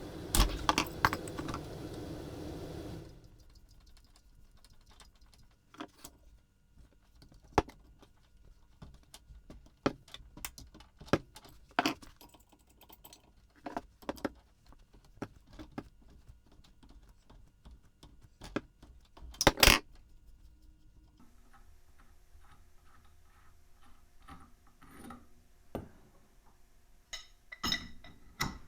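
Steel hand tools and parts clinking and clanking in scattered short knocks while an ATV's rear hub and axle are being taken apart, with one louder burst of clatter about twenty seconds in. A steady running noise stops about three seconds in.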